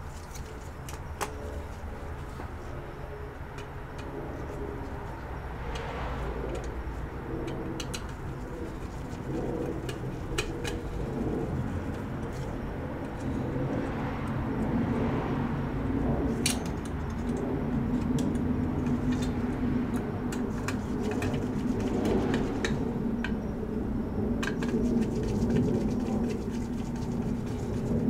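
Scattered light clicks and taps from handling a bare cable modem circuit board and its metal heatsink. Beneath them runs a low, steady droning sound that grows gradually louder.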